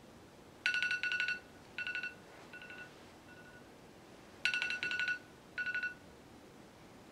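iPhone timer alarm going off as the countdown runs out: rapidly pulsed electronic beeps in short groups, two rounds of them, cut off about six seconds in when the screen is tapped.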